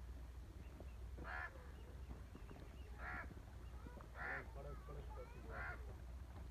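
A crow cawing four times, a second or so between calls, over a steady low hum.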